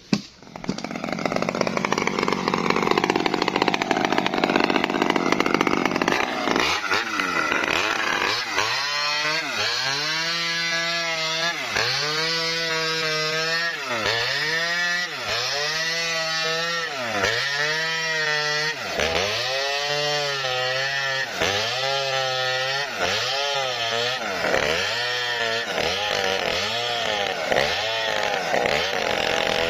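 Small two-stroke Maestro mini chainsaw cutting into a felled coconut palm trunk to split it. It runs at high revs for the first few seconds. Then its engine pitch swells and drops in a regular cycle about every second and a half as the saw works through the wood.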